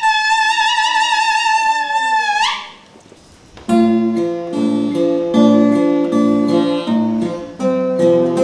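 A small mouth-blown instrument holds one high, reedy note with vibrato, which slides upward and stops about two and a half seconds in. After a second's pause, an acoustic-electric guitar starts playing picked chords.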